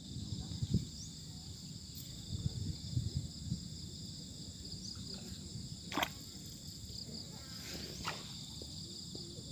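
Steady high-pitched chorus of insects chirping, likely crickets, with low rumbling noise in the first few seconds and a sharp click about six seconds in.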